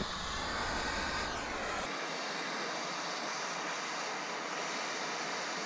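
Acetylene brazing torch burning with a steady hissing rush while copper refrigerant joints are brazed.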